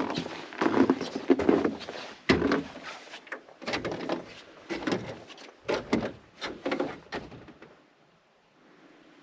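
Footsteps crunching in snow, a steady walking rhythm of about one or two steps a second, that stop near the end.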